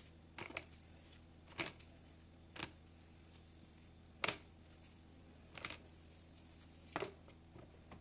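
Carrots being set down one by one into a clear plastic storage box with a plastic drainer rack: about six light knocks and clatters, a second or so apart, over a faint steady hum.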